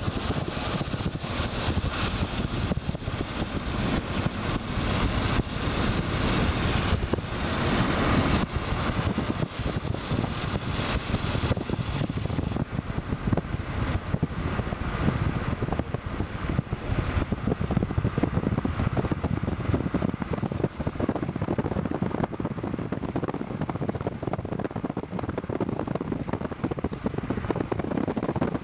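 Car driving at night, with a steady rush of road and tyre noise heard from inside the vehicle; a high hiss in it drops away about twelve seconds in.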